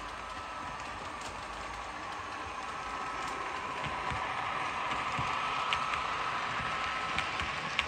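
Model train running past: a Dapol Class 68 model locomotive hauling Accurascale Mk5 coaches, its motor giving a steady whine that grows louder as it comes close, with a few sharp clicks of wheels over rail joints in the second half.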